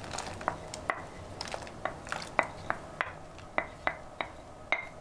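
Wooden spoon scraping diced raw potatoes out of a bowl into a stainless steel pot of boiling water: a run of sharp knocks and clinks of spoon and bowl against the pot's rim, two or three a second, some ringing briefly.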